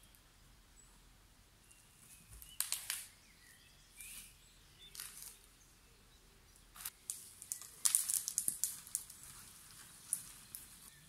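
Cut branches and brush rustling and crackling as they are gathered and moved onto a pile, in a series of short bursts, with a cluster of rapid crackles about eight seconds in.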